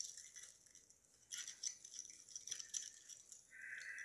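Paper sandwich wrapper crinkling and rustling as it is handled, in faint irregular crackles with a short lull about a second in.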